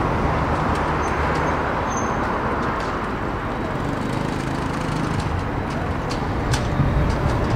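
Hastings diesel-electric multiple unit 1001, a 'thumper', drawing near with its English Electric diesel engine running in a steady low throb under a wash of rail noise. Near the end, clicks of wheels over rail joints come in as it gets closer.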